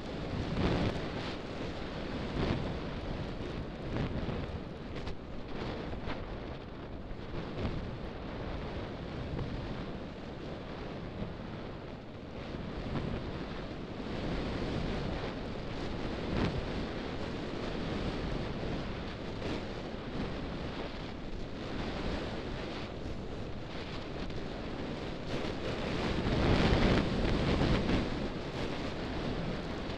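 Wind buffeting the camera microphone: a steady low rumble that swells and eases in gusts, with the strongest gust near the end.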